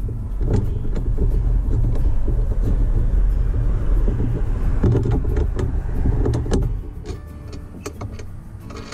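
Wind buffeting the microphone as a low, uneven rumble that eases off near the end, with scattered knocks and rattles as a tie-down strap is worked over a wooden board against the camper's metal side.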